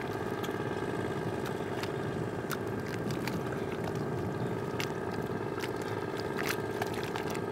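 A steady hum runs throughout, with scattered light clicks and scrapes of hands smoothing wet mud on the ground.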